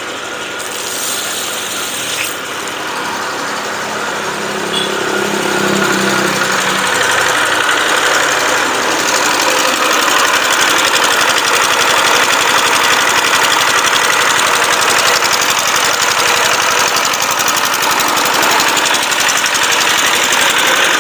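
Small stationary engine running steadily. It grows louder over the first several seconds, then holds steady.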